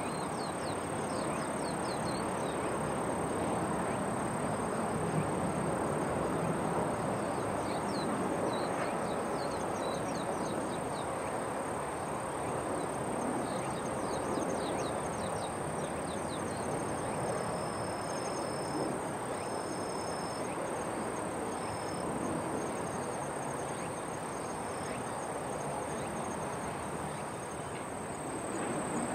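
Outdoor ambience: a steady rushing background noise with many short, high chirps of small birds scattered through it.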